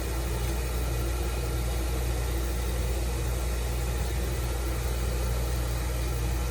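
Oil burner motor running steadily with a low hum, driving the blower and fuel pump while the pump's bleeder screw is open to purge air from the oil line. The burner is not firing.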